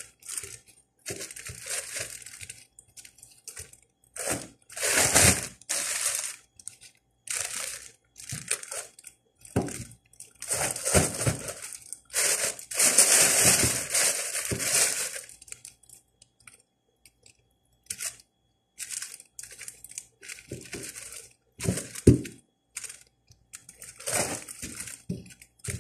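Thin plastic shopping bags crinkling and rustling in irregular bursts as hands dig through and pull at them, with short pauses in between. A single sharper thump near the end is the loudest sound.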